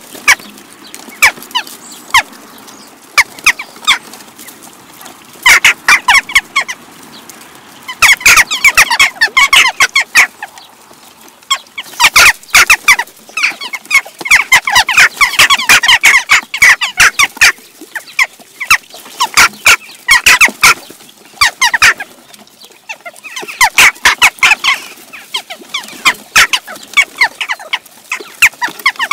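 A flock of western jackdaws calling: many short, sharp calls overlapping, coming in loud bunches with thinner spells between.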